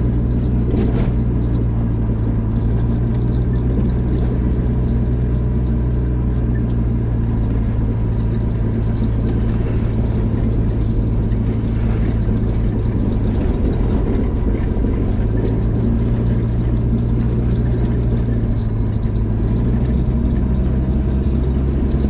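A car's engine and road noise heard from inside the cabin while driving: a steady low drone whose pitch shifts briefly about two-thirds of the way through.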